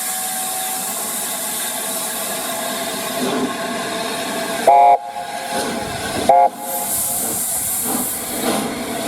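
Train horn sounding two short blasts about a second and a half apart, each a chord of several tones, over a steady loud hiss of a passing train.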